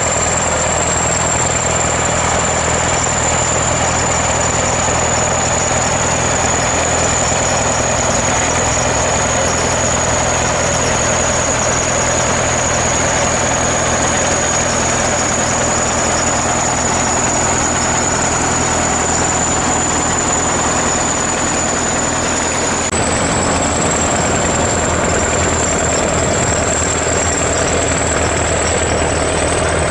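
ChTZ T-170 bulldozer's diesel engine running steadily at idle, with a thin high whine over it. About 23 seconds in, the engine note and the whine shift slightly.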